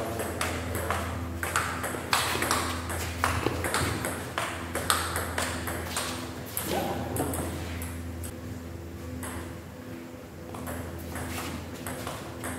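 Table tennis rally: a celluloid-type ball clicks sharply off rubber paddles and the table top, about two hits a second for the first six seconds, then fewer and again a few near the end. A steady low hum runs underneath.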